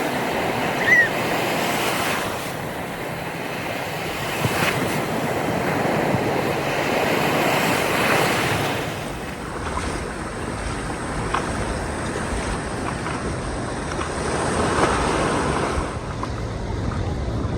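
Ocean surf washing onto the beach, swelling and fading in slow surges, with wind rumbling on the microphone.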